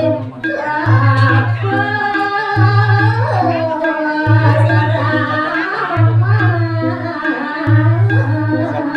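A woman singing a Balinese geguritan (tembang) into a microphone: a long, ornamented vocal line that slides and bends in pitch. Under it a low beat pulses in short runs with brief breaks.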